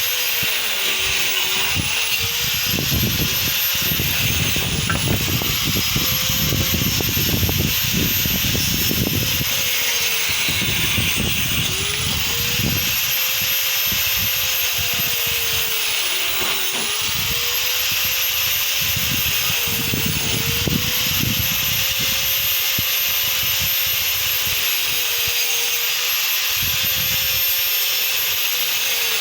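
Angle grinder running and cutting into a hardwood plank. Its motor whine dips in pitch and recovers every few seconds as the disc is pushed into the wood, over a rough grinding noise from the cut.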